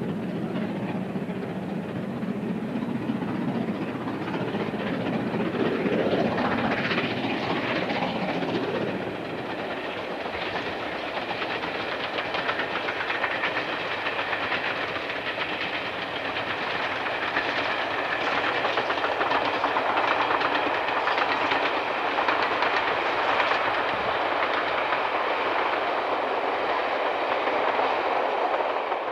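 Steam-hauled train running along the main line: a steady rush of locomotive exhaust and wheels on rails that dips briefly about nine seconds in, then grows louder.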